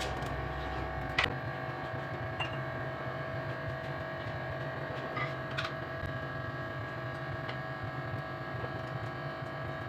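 Quiet kitchen background: a steady faint hum and hiss, with a few light clinks of a spoon and crockery.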